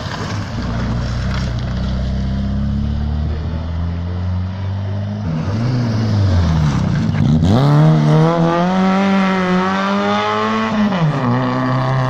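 Rally cars on a night special stage. One car's engine runs on at first. Then a second car comes through with its revs dropping as it slows for the bend, then accelerating hard with the engine held at high revs, before it eases off about a second before the end.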